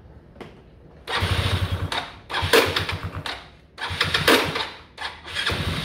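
A Yamaha Cygnus scooter's electric starter cranking its newly built single-cylinder four-stroke engine in about four short bursts, each under a second long with a fast low pulsing, starting about a second in. The engine does not catch: the new engine kit will not fire.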